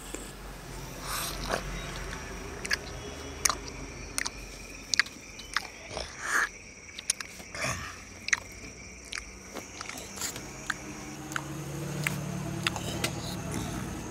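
Noisy eating by hand: wet lip smacks and chewing as rice is shovelled into the mouth and chewed, in irregular clicks and smacks. A steady faint high whine runs underneath.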